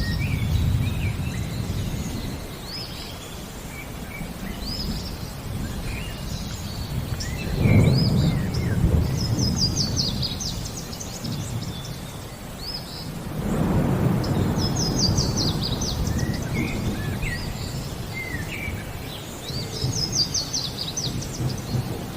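Thunderstorm ambience: rolling thunder rumbling twice, about eight seconds in and again from about fourteen seconds, under steady rain. Songbirds chirp and trill throughout.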